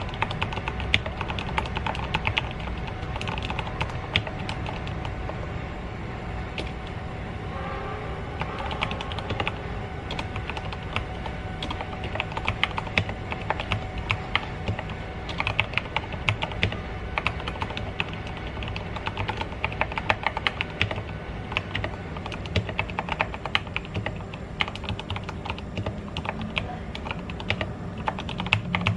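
Typing on an Ajazz AK33 mechanical keyboard in an acrylic case: a continuous stream of keystroke clacks in quick runs.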